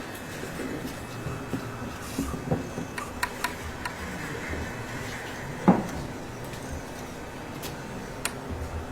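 Wooden toy blocks knocking and clicking as they are handled and set onto a stacked tower, a few light clicks and one louder knock about two-thirds of the way through, over steady hall noise.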